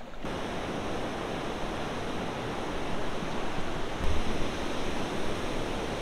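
Steady rushing roar of a waterfall's churning water, with no engine tone in it. A single low bump comes about four seconds in.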